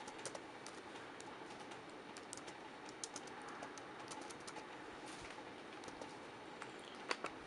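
Faint, irregular keystrokes of typing on a computer keyboard, with a couple of sharper clicks near the end.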